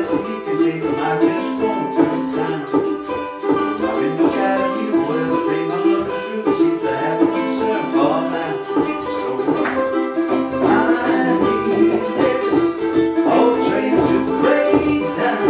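Two ukuleles strummed in a steady rhythm, with percussion keeping the beat.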